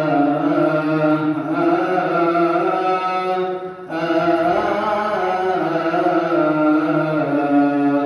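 A man's voice chanting a Coptic liturgical hymn in long, drawn-out melismatic notes, with a short break for breath about four seconds in.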